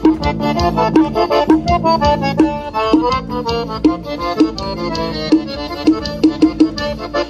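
Accordion-led dance music with a steady beat, played through a 10-inch midrange speaker in a horn-loaded box as a demonstration of how the 10-inch mid sounds.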